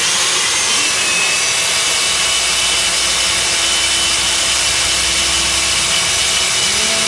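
Stand-mounted electric diamond core drill running steadily, its water-cooled core bit grinding into a concrete slab: an even grinding hiss with a faint steady high tone.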